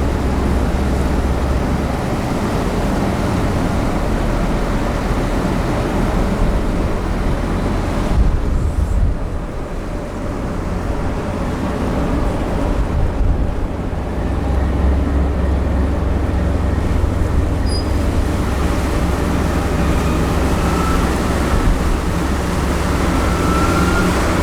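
Cargo-passenger ship's engines running with a low, steady drone, heard from on deck with a broad rush of wind and water. The drone eases off for a few seconds about a third of the way in, then grows stronger again from just past the middle.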